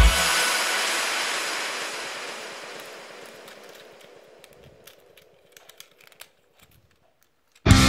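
Background music ends in a ringing tail that dies away over about four seconds. A few faint clicks of hard plastic toy parts follow as a transforming robot car toy is folded by hand. Music starts again near the end.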